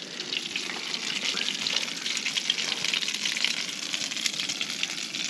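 Garlic frying in butter in a pan: a steady sizzle with fine crackling throughout.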